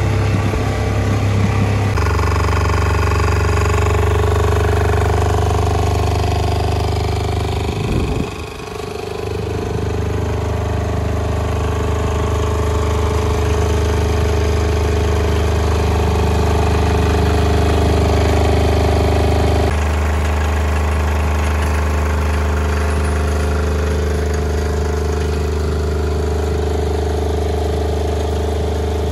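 Fichtel & Sachs D500W single-cylinder two-stroke diesel of a Bungartz L5 single-axle tractor running steadily. About eight seconds in, the engine note briefly drops and sweeps back up. The sound shifts abruptly twice, at about two seconds and near twenty seconds.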